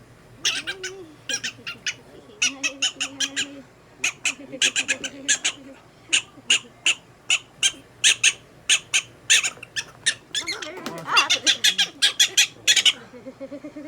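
Prairie dog giving runs of short, sharp chirping barks in quick succession, densest near the end: an angry prairie dog protesting at being handled.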